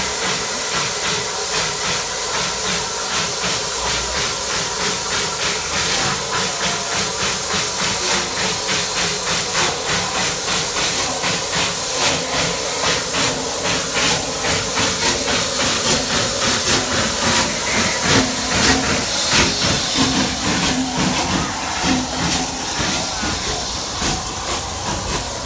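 Bulleid Battle of Britain class steam locomotive 34052 Lord Dowding, a Southern Railway light Pacific, with steam hissing from around its cylinders. The hiss is loud and steady, with a regular pulsing in it that grows stronger from about halfway through.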